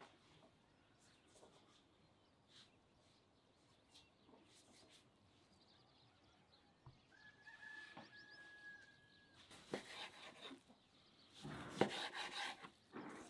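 Chickens calling in the background, with one held note about halfway through and louder calls near the end. Near the end a knife also cuts raw meat on a wooden cutting board, giving a sharp knock and rubbing sounds.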